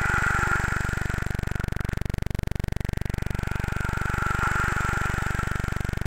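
Indonesian rain stick tipped over: a hissing patter of its falling fill. The first pour fades out a second or two in, and a second one builds from about halfway through. A steady low drone runs underneath.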